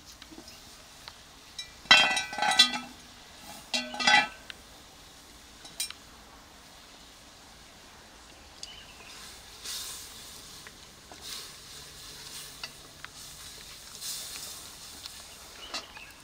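Cast iron pot lid clanking against the pot and ringing, in two loud bursts about two and four seconds in. Later, soft intermittent hissing as dry maize meal is poured into the steaming pot and stirred.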